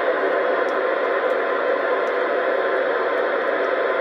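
Steady hiss of static from a CB radio receiver's speaker, with the channel open and no voice coming through.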